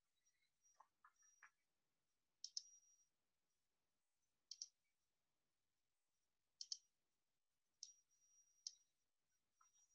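Near silence broken by a handful of faint, short clicks at irregular intervals, one to two seconds apart.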